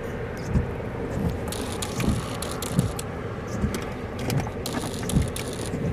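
Car noise heard from inside the cabin: a steady rumble with a low thump roughly every three-quarters of a second and light rattling.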